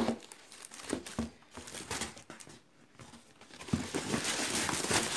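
Crinkling and rustling of a thick non-woven fabric tote bag being handled and unfolded over a cardboard box. There are a few soft rustles and taps at first, then louder, continuous rustling from a little before four seconds in.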